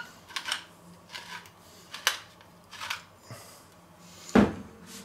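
Tall wooden salt and pepper mills grinding over a pizza: a series of short crunching strokes about once a second as the mill is twisted. A single sharp wooden knock near the end, the loudest sound, as a mill is set down on the counter.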